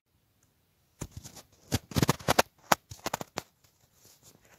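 Close rustling and crackling clicks for about two and a half seconds, starting about a second in: fabric and bedding being shifted right at the microphone.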